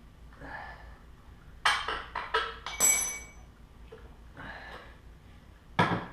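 Metal knocks and clinks as the top motor mount bolt is worked out of a Honda XR70's frame, with one bright ringing metallic clank about three seconds in and another sharp knock near the end.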